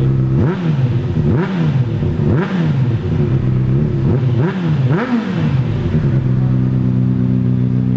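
2009 Honda CBR600RR's inline four-cylinder engine, breathing through a Yoshimura slip-on exhaust, idling, then revved in a series of quick throttle blips, each rising and falling in pitch, before settling back to a steady idle about six seconds in.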